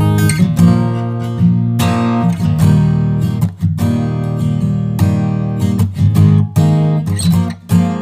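Taylor custom acoustic guitar played solo, strummed chords ringing out one after another, with two short breaks between phrases.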